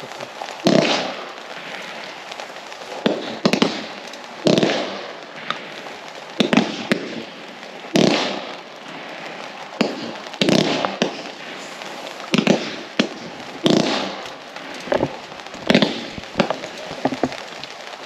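Riakeo/Röder 'Diadem' 30 mm waterfall firework battery firing shot after shot, a thump about every second. Each launch is followed by a crackling hiss, with a steady crackle between the shots.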